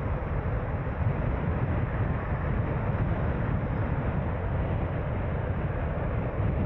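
Steady low rumble of a car on the move: engine and tyre noise from driving, with no horns or other sudden sounds.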